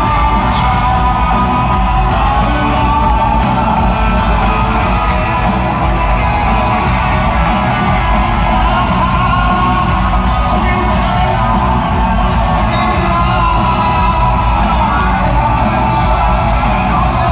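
Live rock band playing with a male lead singer singing throughout, heard from the audience in a large hall.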